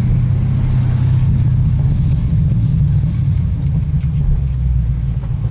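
Tuned 2017 Ford Mustang GT's 5.0-litre V8 running at a steady idle, a loud, deep, even engine note with no revving.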